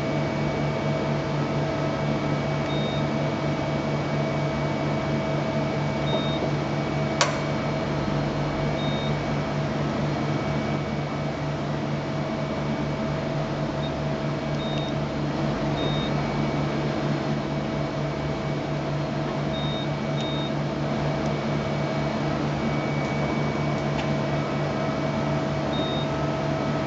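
Steady hum of a powered-up Okuma LB 300M CNC lathe, with short high beeps every few seconds and a single sharp click about seven seconds in.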